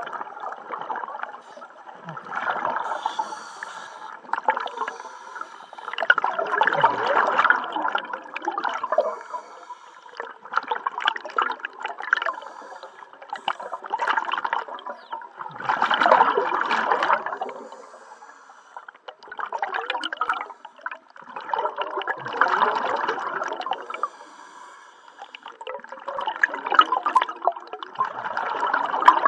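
Scuba diver breathing through a regulator underwater: exhaled bubbles gurgle out in bursts of a second or two, about every four to five seconds, with quieter inhales between.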